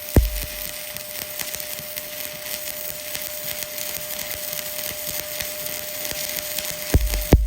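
Stick welding (SMAW) arc crackling steadily as the electrode lays a bead on steel plate. There is a loud thump just after the start and two more near the end.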